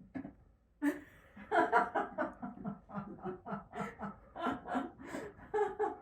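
A person laughing, a run of short pitched bursts of laughter, about three a second.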